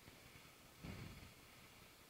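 Near silence: faint room tone, with one brief soft sound a little under a second in.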